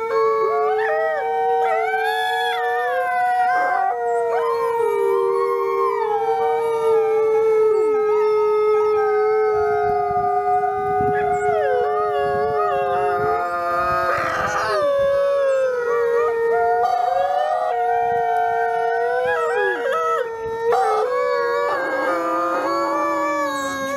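Gray wolf howling in long, drawn-out notes that glide slowly in pitch, with several howls at different pitches overlapping.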